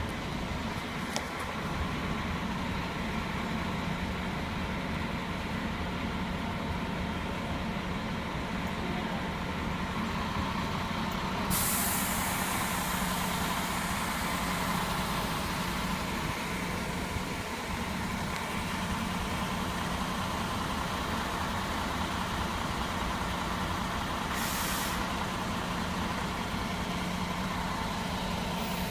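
A coach's diesel engine idling steadily while parked. About twelve seconds in comes a sudden hiss of released air that tails off slowly, and a second, short hiss about twenty-four seconds in.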